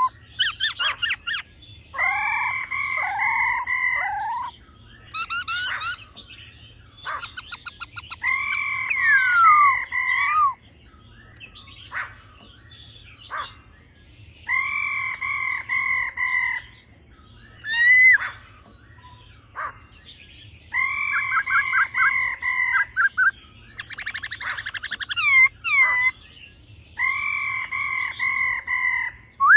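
Black-throated laughingthrush singing: a loud whistled phrase of about two seconds repeated roughly every six seconds, with shorter sliding whistles and quick trills in between.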